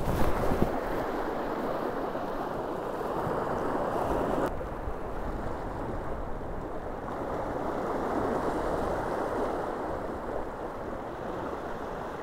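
Sea swell washing and foaming over shoreline rocks: a steady rushing that swells and eases twice. Wind buffets the microphone in the first moment.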